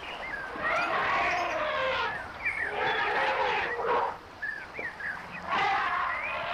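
A group of elephants calling in overlapping bursts of squeals and roars that slide up and down in pitch. There is a short lull a little past the middle.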